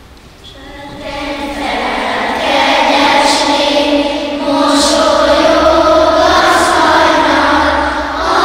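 A group of young schoolchildren singing a song together in unison, starting softly about a second in and swelling to full voice.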